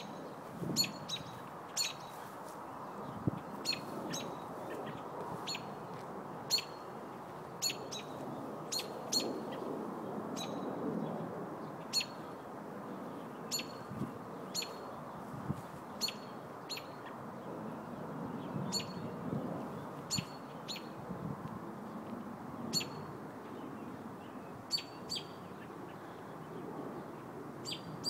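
American robin giving sharp, short call notes again and again, irregularly about once a second, over a steady low background noise.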